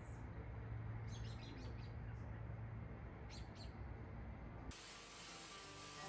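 A few short bird chirps over quiet outdoor ambience with a low steady hum; near the end the background thins to a faint hiss.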